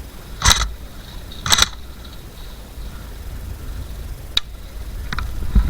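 Two sharp airsoft gun shots about a second apart, then a single thin click near the end, over a steady low rumble.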